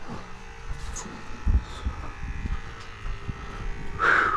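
Steady faint mechanical buzz and hum, with a few dull low knocks, the loudest about a second and a half in. A short loud call, likely a voice, comes near the end.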